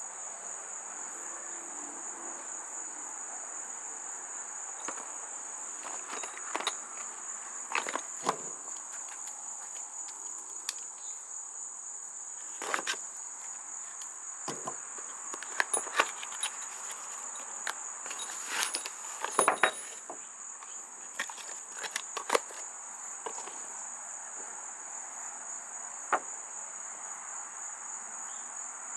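A steady high cricket trill in the background, with scattered sharp clicks and light knocks of small parts and packaging being handled, a cluster of them about two-thirds of the way through.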